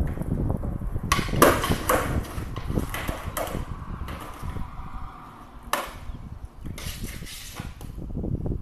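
Several sharp knocks and clatters at irregular intervals, the loudest about a second and a half in and another near six seconds, over a low rumble.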